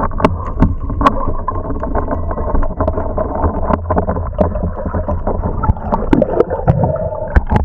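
Underwater sound through an action camera's waterproof housing as a diver swims: a steady, muffled low rush of water with many scattered sharp clicks and knocks.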